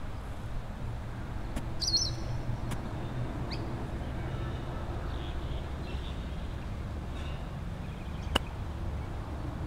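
Wind rumbling on the microphone outdoors, with birds chirping: a short cluster of high chirps about two seconds in. A single sharp click sounds near the end.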